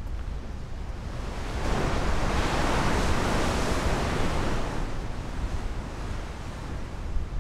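Sea surf breaking against rocky cliffs below, one wash of waves swelling about two seconds in and fading away, over a steady low rumble of wind on the microphone.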